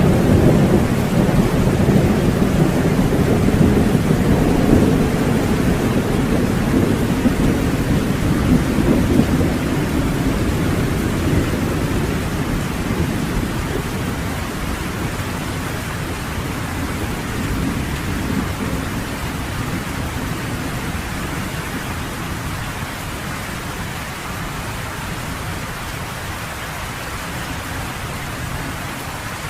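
Steady heavy rain with a long roll of thunder: the deep rumble is strongest in the first dozen seconds, then slowly dies away under the rain.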